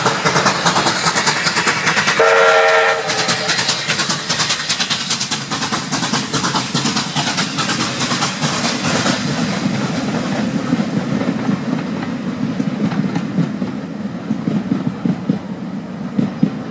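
A steam locomotive working hard, its exhaust beating rapidly, gives a short whistle blast about two seconds in. After about nine seconds the beats fade and the coaches' wheels rumble and clatter over the rails as the train passes.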